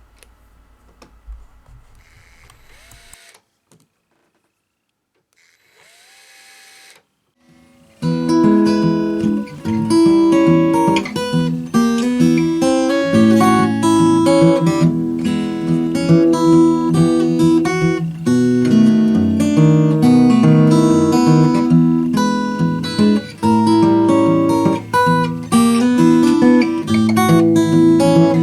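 Taylor 814CE acoustic guitar being played after its repair, a run of plucked and strummed notes with ringing bass notes. It starts about eight seconds in, after a few seconds of faint handling noises.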